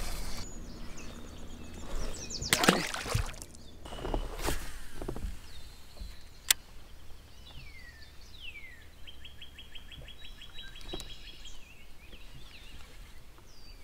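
Commotion of a small smallmouth bass being played on rod and line beside a kayak, with a few loud noisy surges in the first five seconds and one sharp click a little after midway. Later a bird gives two falling whistles, then a fast, even trill.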